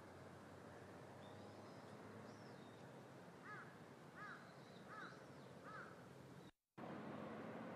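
A bird calling four times in a row, about three quarters of a second apart, over faint higher chirping and quiet outdoor background. The sound drops out completely for a moment near the end.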